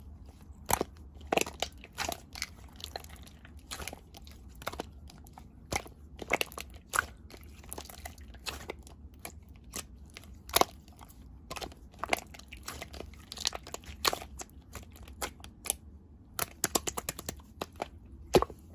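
Clear slime being squeezed, poked and stretched by hand, making irregular sticky clicks and small air-pocket pops, a few of them louder, with a quick run of clicks near the end.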